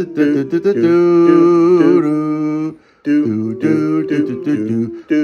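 Acoustic guitar music with a voice singing along, holding one long note for about two seconds before breaking off briefly.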